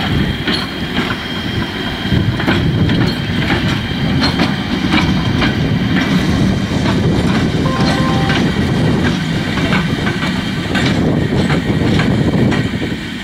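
Romanian CFR class 40 electric locomotive running light past, its wheels clicking irregularly over rail joints and points above a steady low rumble, with a steady high tone throughout.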